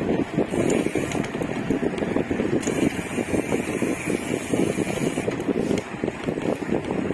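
Wind buffeting the microphone of a rider on the move: a continuous rough, fluttering rumble.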